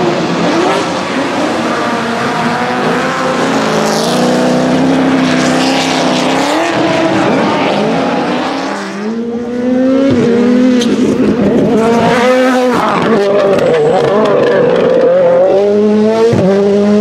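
Drift cars' engines revving up and down hard, with the tyres squealing as they spin and slide sideways. The engine note dips briefly about halfway through, then climbs and falls again.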